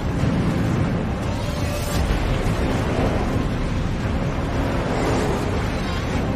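Film sound effects of a tornado: a loud, steady rush of storm wind with a deep rumble.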